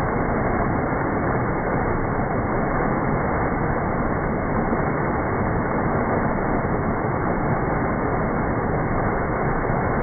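Waterfall cascading down rocks, a steady rush of falling and splashing water.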